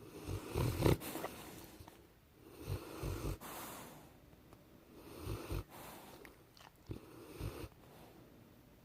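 Rottweiler snoring while asleep: four snores, roughly every two and a half seconds, each a low fluttering rattle on the breath.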